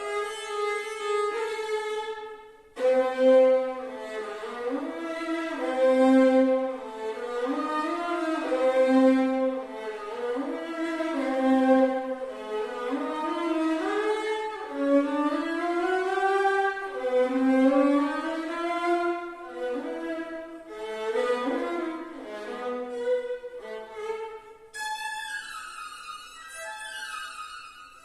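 Violin playing a slow melody in its lower register, gliding between notes. There is a short break just under three seconds in, and the line moves up to high notes near the end.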